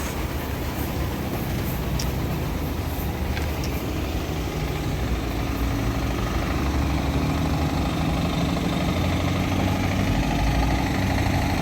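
Heavy truck's diesel engine idling steadily with a low rumble.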